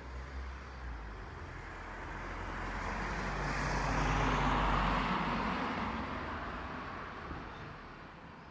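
A motor vehicle passing by: its noise swells to a peak about four and a half seconds in, then fades away.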